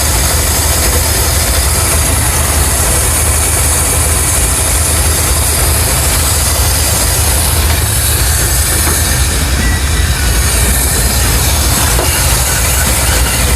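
Ford F100's Holley-carbureted engine running steadily with a low rumble and a constant hiss, no change in speed; it is running rich.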